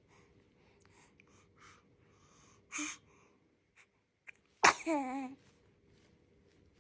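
A baby sneezing once: a short breathy sound, then a sharp burst followed by a brief squeaky voiced tail that falls in pitch.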